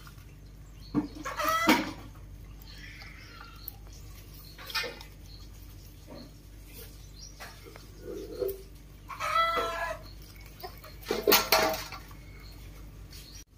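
Short squawking animal calls from the yard, a handful in all, the loudest about a second in and twice in the last few seconds.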